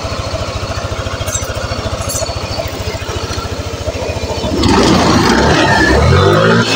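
Yamaha NMAX single-cylinder scooter engine idling with a rapid, even pulse, then revved up and down from about four and a half seconds in.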